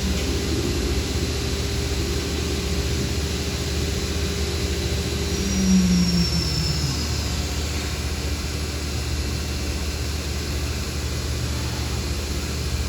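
DMG DMU-210P 5-axis portal CNC machining center running under power: a steady machine hum with a few constant tones. About five and a half seconds in, a brief louder whine falls in pitch as the machine moves.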